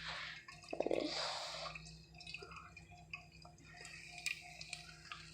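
Faint scattered ticking and light sizzling from popcorn kernels heating in oil in a pot on the stovetop, not yet popping. A short breathy vocal sound and a brief hiss come about a second in.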